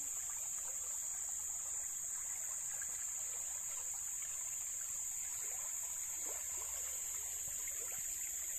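Shallow stream running and gurgling over rocks, with a steady high-pitched drone of insects over it.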